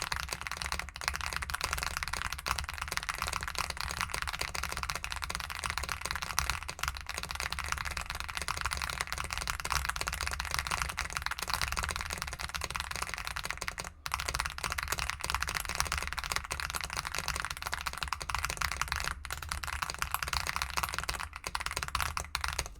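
Very fast typing, around 220 words per minute, on a mechanical keyboard with linear switches: a dense, unbroken clatter of keystrokes with a brief pause about fourteen seconds in.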